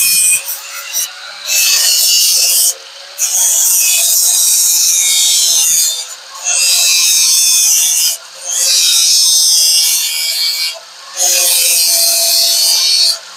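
A homemade shifter knob being sanded smooth, in five long scraping passes of about two to three seconds each with short breaks between them, over a steady hum.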